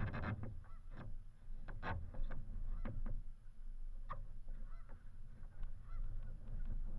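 Wing paddle strokes in calm lake water: short, sharp splashes at an irregular pace, about one or two a second, over a steady low rumble.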